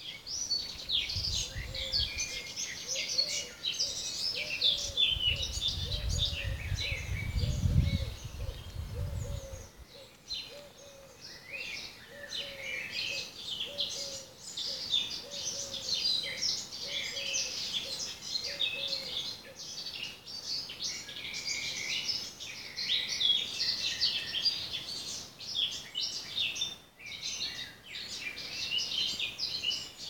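Many small songbirds chirping and singing together in a busy morning chorus, with a low note repeated about every two-thirds of a second through the first two-thirds. A low rumble runs under the first ten seconds.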